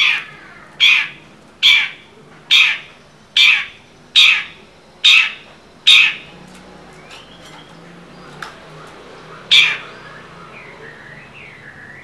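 Long-tailed shrike (cendet) calling loudly: a run of eight harsh calls a little under a second apart, then after a pause one more, followed near the end by a few faint, soft whistled notes.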